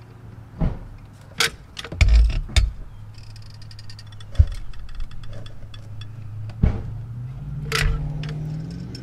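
Caulking gun clicking and knocking as its trigger is squeezed to lay a bead of sealant, about half a dozen sharp clicks spread through. Under it runs a steady low hum that rises in pitch near the end.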